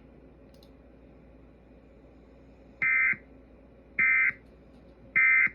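Three short bursts of Emergency Alert System SAME data tones, evenly spaced a little over a second apart, starting about three seconds in: the end-of-message code that closes the alert.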